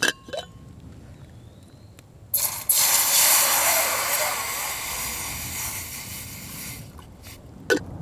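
Water poured from a stainless steel bottle into a stainless steel camping pot, the MSR Seagull Stowaway 775 ml. The pour starts abruptly a little over two seconds in, runs for about four seconds and slowly fades. It is preceded by a few short clicks as the bottle's cap is twisted off.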